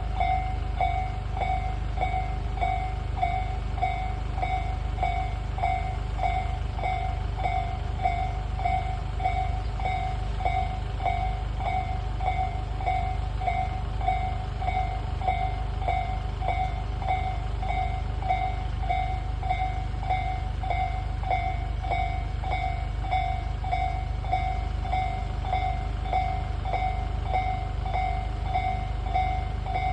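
Japanese railway level crossing warning bell ringing steadily, an even electronic ding repeating a little under twice a second, with a steady low rumble beneath.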